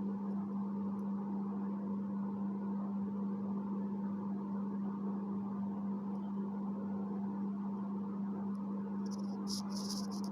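A steady low hum on one pitch with background hiss, and a few short soft clicks near the end.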